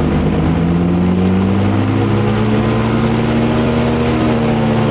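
Airboat's 200-horsepower engine and air propeller revving up smoothly and steadily, the pitch rising slowly throughout. The throttle is being opened gradually to get the stuck boat moving off boggy ground with its electric under-hull blower switched on.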